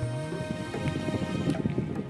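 Background music with held notes and a low note sliding upward near the start.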